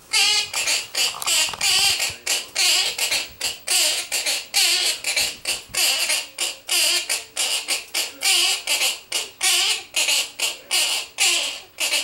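Quaker parrot singing: a fast run of loud, repeated calls, about three a second, that stops near the end.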